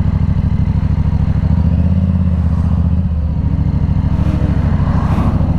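Yamaha R7's 689 cc parallel-twin running through a Yoshimura AT2 full exhaust system while riding, a loud, steady, pulsing exhaust note. The pitch rises about a second and a half in, drops back near the middle, then rises and eases off again with the throttle.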